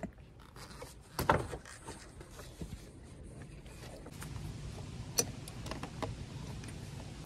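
A car battery being lowered by hand into its tray under the hood, knocking against the tray and surrounding parts about a second in. Later come a few light clicks as a socket ratchet starts tightening the battery hold-down.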